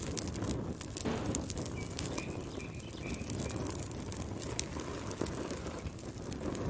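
Wood fire crackling and popping over the low rumble of the flames, with sharp snaps scattered throughout. A short run of faint high chirps, like a bird, comes about two seconds in.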